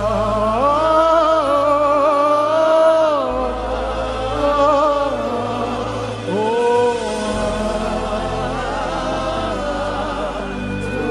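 Live gospel worship music: voices sing long, held notes with vibrato over a steady low bass accompaniment.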